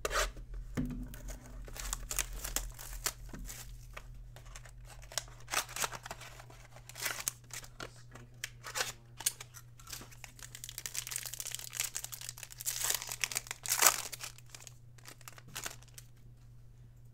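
A Bowman Sterling baseball card box and its wrapping being torn open by hand: irregular crinkling and tearing of cardboard and foil wrapper, busiest and loudest in the last few seconds. A steady low electrical hum runs underneath.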